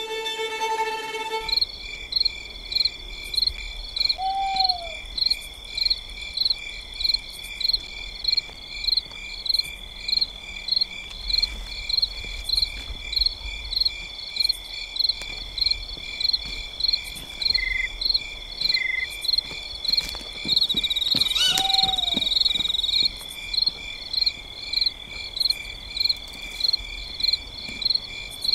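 Night-time cricket chorus: a steady high trill with a louder chirp pulsing about three times every two seconds, and a short falling call at about 4 s and again at about 22 s. A violin phrase ends about a second in.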